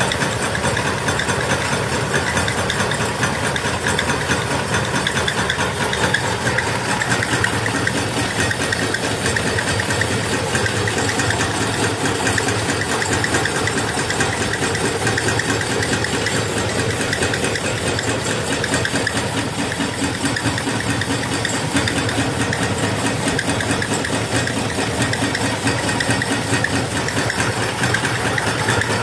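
Homemade four-cylinder Stirling engine running steadily, its mechanism giving a fast, even clatter.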